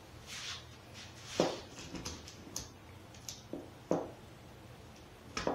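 Scattered clicks and knocks of a long metal bar clamp being handled and set across a wooden glue-up, about half a dozen over a few seconds, the strongest about a second and a half in.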